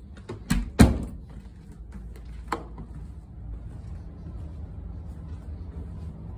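Wooden closet door pushed shut, with two quick knocks just under a second in, the second the loudest, as it meets the frame and latches. A lighter knock follows about two and a half seconds in.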